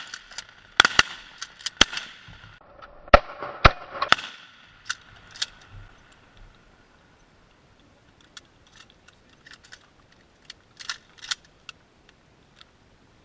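Volley of shotgun blasts from several duck hunters firing at once: about eight sharp shots in quick succession over the first four seconds, each ringing out briefly, then a few fainter shots near the end.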